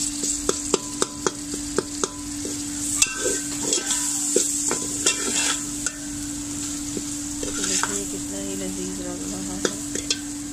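Metal slotted spatula stirring and scraping a masala of fried onions, tomatoes and green chillies in a metal pot, with the steady sizzle of the masala frying in ghee and repeated sharp clicks of the spatula against the pot. A steady low hum sits underneath.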